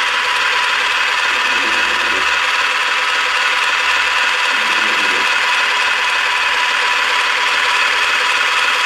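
Toy blender running with a steady, even whir.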